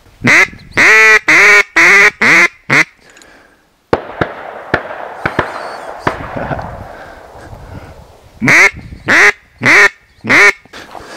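Duck quacking close by in loud, quick series: six quacks, a pause with rustling, then four more near the end.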